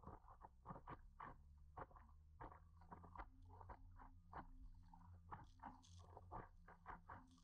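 Small waves slapping and lapping against the nose of a stand-up paddleboard, a faint quick run of soft knocks over a low rumble, with a brief hiss of spray about six seconds in.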